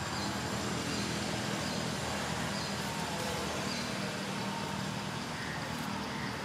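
Steady outdoor background noise with a low hum, like distant traffic, and faint high chirps repeating about every half second.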